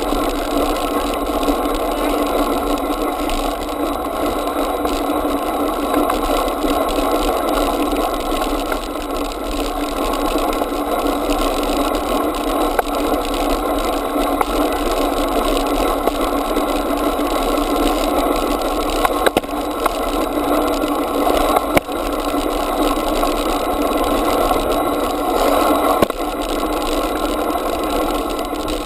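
Steady rolling rumble and rattle of a bicycle riding along a tarmac pavement, heard close up from a camera mounted on the bike, with a couple of sharp knocks a little past halfway.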